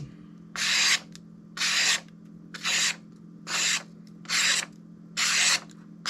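A steel knife blade drawn in even strokes across a sharpening stone: six hissing scrapes, about one a second.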